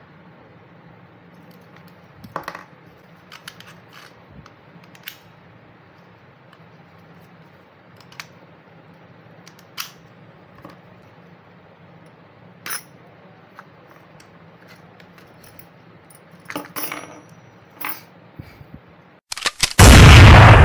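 Light clicks and taps as a dry cell battery is handled and fitted into a plastic battery charger and case on a table. Near the end a sudden, very loud explosion-like blast lasts about two seconds.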